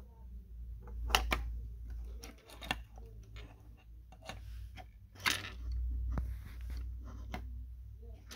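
Plastic Lego minifigures and bricks being handled on a wooden desk: scattered light clicks and knocks, the sharpest about a second in and again past the middle, over a low handling rumble.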